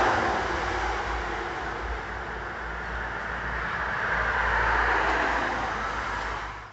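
Road traffic: cars passing on the street, a steady rush of tyre and engine noise that is loudest at the start and swells again about two-thirds of the way through, then cuts off suddenly at the end.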